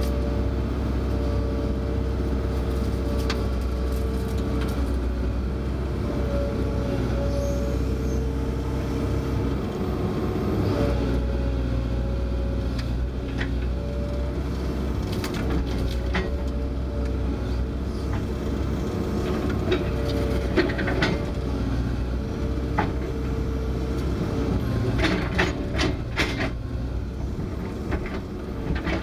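Kobelco excavator's diesel engine running steadily, heard from inside the cab, with a hydraulic whine that breaks off and comes back every few seconds as the boom and bucket move. Several sharp clanks come near the end.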